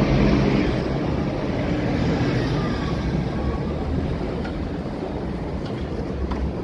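Wind rumbling on the microphone over a steady background of street traffic, with a few faint clicks near the end.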